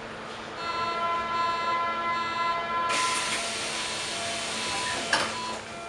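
Door-closing sequence on a Berlin U-Bahn A-type small-profile train. A steady warning tone sounds for about two seconds, then compressed air hisses for a few seconds and the doors shut with a knock near the end.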